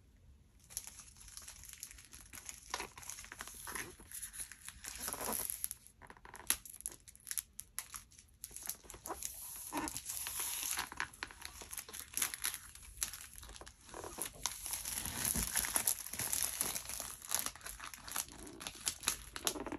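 Clear plastic shrink-wrap on a MacBook Pro box crinkling and tearing as it is peeled off by hand. It starts about a second in and goes on as a busy run of sharp crackles.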